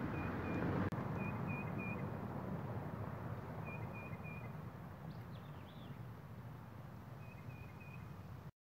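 Outdoor ambience: a bird repeats a short call of three or four quick high notes several times, with a few falling whistled notes midway. Under it runs a steady low outdoor rumble that fades slightly, and the sound cuts off abruptly near the end.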